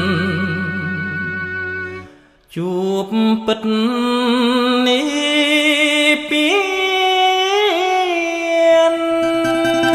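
A song with a solo singer holding long notes with vibrato and slides; the sound drops out briefly about two seconds in, then a new phrase starts on sustained notes that step up in pitch.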